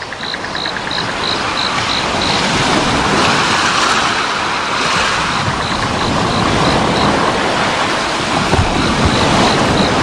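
Recorded sea surf played over the show's sound system, a wash of waves swelling up over the first few seconds, with a faint high ticking about three times a second running through parts of it.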